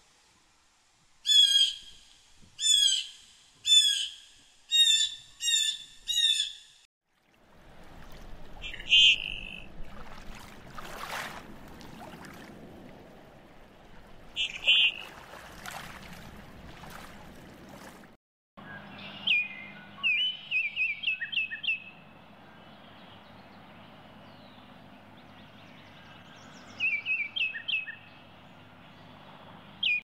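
Three bird recordings in a row. First a blue jay gives about six short calls, evenly repeated. Next come a couple of short calls from common goldeneyes over a steady hiss, and last a Baltimore oriole with two rapid series of chattering notes.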